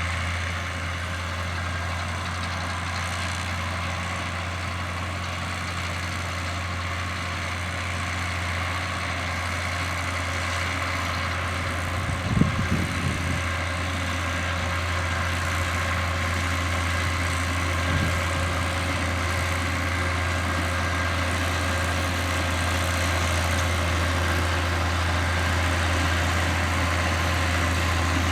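John Deere 7710 tractor's six-cylinder diesel running steadily under load while working a Krone round baler-wrapper. A short burst of knocks comes about twelve seconds in, and a single lighter knock about six seconds later.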